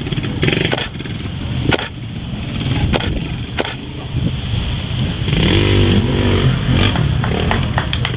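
Trials motorcycle engine running and blipping on a steep rock climb, with sharp knocks in the first few seconds. A rev rises about five and a half seconds in and is the loudest part.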